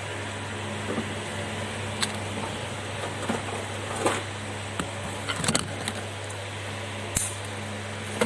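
A steady low mechanical hum, with scattered small clicks and scrapes of a hand tool cleaning dirt off a phone's circuit board pads.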